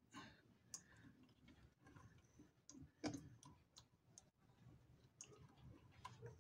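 Faint, scattered small clicks as the presser foot and needle area of an Adler shoemaker's sewing machine are adjusted by hand, with one slightly stronger click about three seconds in.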